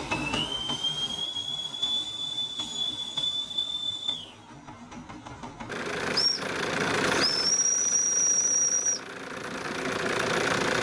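Small steam whistles on toy live steam engines blowing: one long high whistle of about four seconds, then, over a steady hiss of venting steam, a short toot and a higher whistle of under two seconds.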